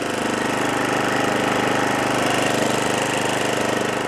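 Snapper 28-inch 12.5 HP Hi-Vac rear-engine riding mower's engine running steadily, purring like a kitten, being run to work through after sitting for a year.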